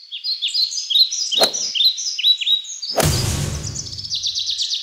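Birds chirping in a string of short, quick down-sweeping chirps, turning into a fast trill near the end. A sharp click comes a little past a second in, and a loud burst of noise with a low rumble comes about three seconds in and fades over a second and a half.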